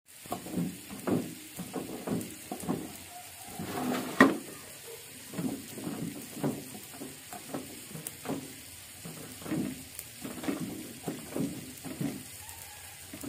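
A cleaver chopping fried egg and chilies on a thick round wooden chopping board. It makes a run of dull knocks, about two or three a second, with one sharper, louder knock about four seconds in.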